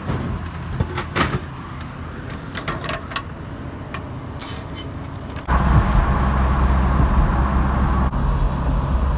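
A few clicks and knocks over a low car hum, then, about five and a half seconds in, an abrupt switch to loud, steady noise inside a Peugeot 306 on the move: engine, road and wind.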